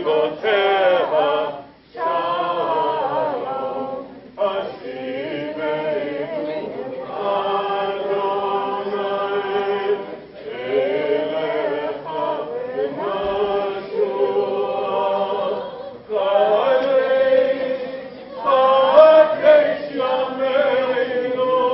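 A girl and her mother chanting together without accompaniment, in sung phrases of a few seconds with short breaks between them.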